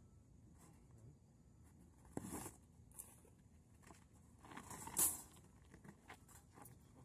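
Rustling and scraping as a camouflage cloth cover is handled over a cat trap, in two short bursts, the second ending in a sharper knock about five seconds in, with a few small clicks between.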